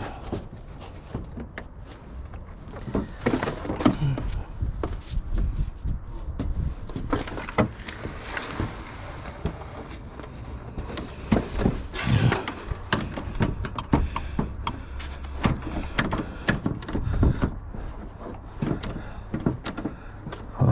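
Irregular knocks, clicks and rattles of car parts being handled and pried at while the front end is taken apart, over a steady low rumble.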